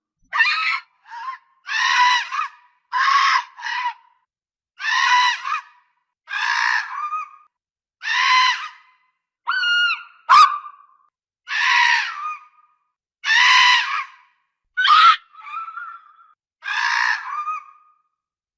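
Fox calling: a string of short, harsh, hoarse calls, roughly one a second, each half a second to a second long with silence between.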